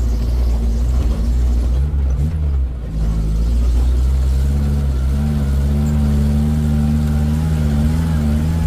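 Vehicle engine running while being driven, with a heavy low rumble; its pitch shifts and briefly dips around two to three seconds in, then holds steady.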